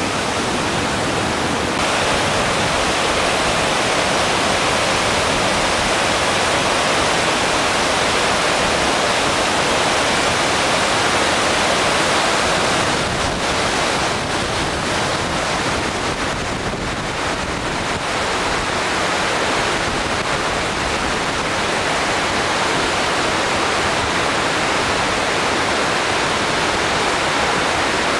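A fast mountain stream rushing over rocks: a steady, loud wash of water noise that eases slightly around the middle.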